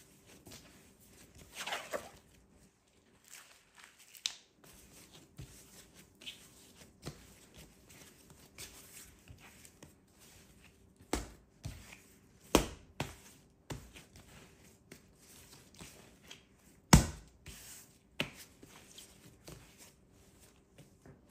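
Kitchen handling sounds: scattered knocks and clatters of utensils and food being worked, the loudest about 17 seconds in, over a faint steady hum.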